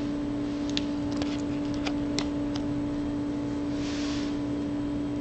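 A steady hum runs throughout, with a scatter of small sharp clicks in the first few seconds and a short soft hiss about four seconds in.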